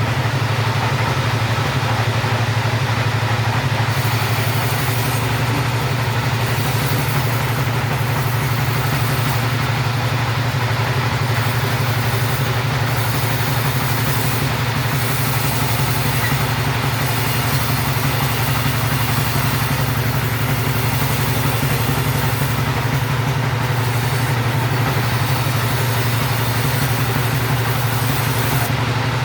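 Two-stroke chainsaw running steadily without a break.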